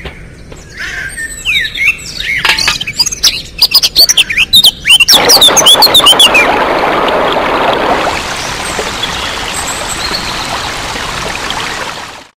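Birds chirping, then, about five seconds in, water starts pouring in a steady stream from a rain barrel's spigot. The sound cuts off abruptly near the end.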